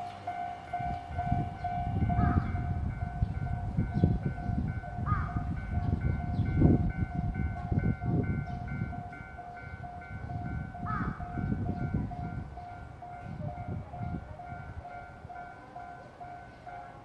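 Japanese level-crossing warning bell ringing, an electronic tone repeating at an even rhythm, over an uneven low rumble.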